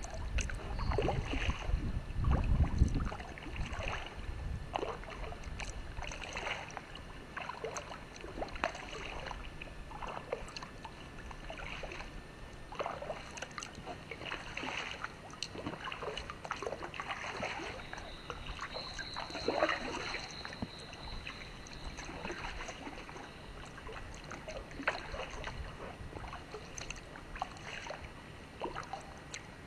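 Kayak paddle strokes: the blade dips and splashes in calm water, with drips and small splashes at irregular intervals. Wind rumbles on the microphone for the first few seconds.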